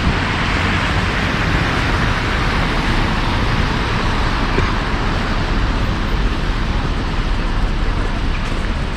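Steady city road traffic: the even noise of cars passing on the street.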